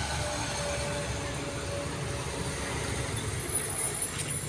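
Motorcycle and scooter traffic running past: a steady low engine-and-road rumble, with a thin high whine about three and a half seconds in.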